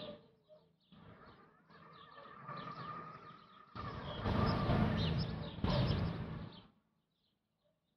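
Small birds chirping over an even rushing noise with a low rumble, which grows louder about four seconds in and cuts off suddenly near the end, leaving only the faint chirps.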